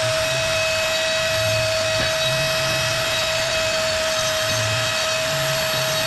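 A power tool running steadily with a constant high whine over a hiss, with a soft low pulsing about once a second.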